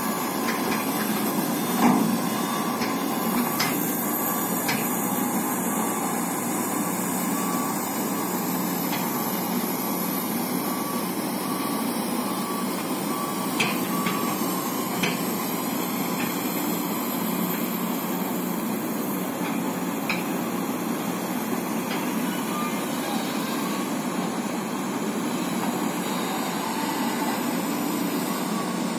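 Heavy diesel engines of Mitsubishi Fuso dump trucks and a Caterpillar excavator running steadily, with a few short sharp clanks of metal on metal.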